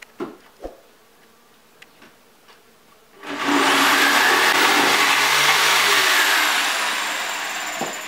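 A couple of light knocks, then about three seconds in a corded electric jigsaw starts cutting through a wooden board, running steadily with a high whine and easing off near the end.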